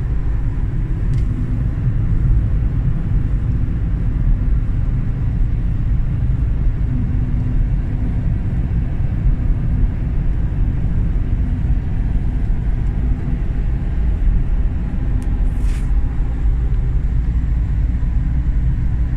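Steady low rumble of a car driving at road speed, heard from inside the cabin: tyre, engine and wind noise. A short hiss cuts in near the end.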